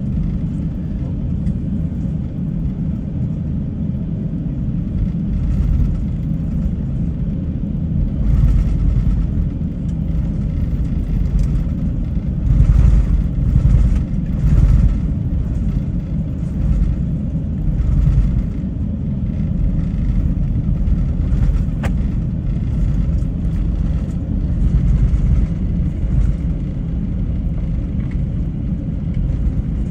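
Airliner cabin noise while taxiing after landing: a steady low rumble from the engines at idle and the wheels rolling on the taxiway, swelling a few times around the middle.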